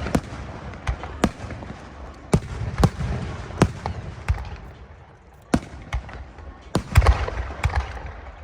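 Aerial fireworks going off in an irregular volley: about a dozen sharp bangs over a few seconds, with a low rumble between them.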